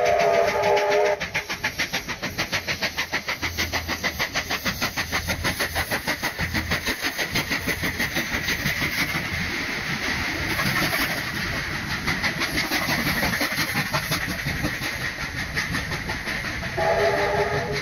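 Steam locomotive's whistle sounding a held chord of several tones, which cuts off about a second in; then fast, even exhaust chuffs from the working locomotive, and the whistle chord sounds again near the end.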